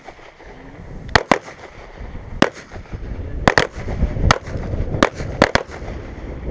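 Pistol shots from several shooters firing at once, about nine sharp reports spaced irregularly, some in quick pairs.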